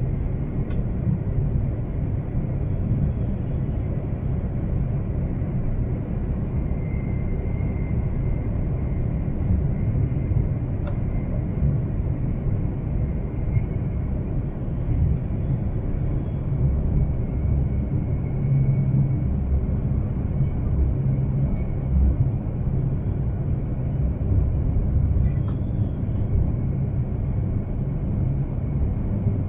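Cabin noise of an E3-series Shinkansen train running between stations: a steady low rumble, with a few faint clicks.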